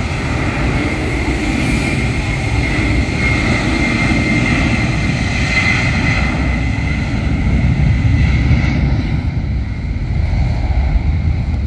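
Twin-engine jet airliner at takeoff thrust on its takeoff roll: a loud, steady rumble with a high fan whine that fades after about seven seconds as the jet pulls away.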